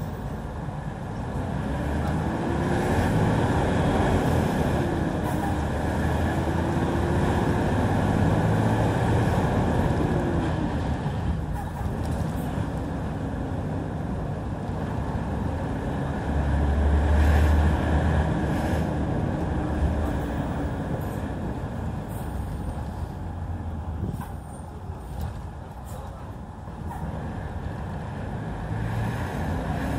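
2006 Hyundai Aero City 540 city bus engine running loud, its pitch rising and falling several times as it pulls, with a few short sharp noises along the way.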